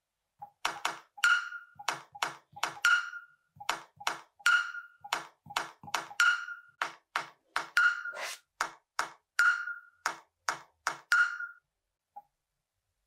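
A simple beat tapped out on the Nothing Phone (2)'s Glyph Composer pads and played from the phone: short percussive hits, two or three a second, with a ringing ping every second and a half or so, a bit out of sync. The beat stops near the end, followed by a faint tap or two.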